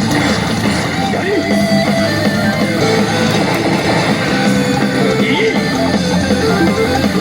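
Rock-style music with electric guitar, playing at a steady level.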